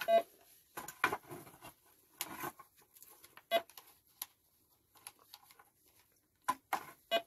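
Metal detector being switched on and set up: short electronic beeps, three of them, near the start, midway and near the end. Between them come small handling clicks and rustles.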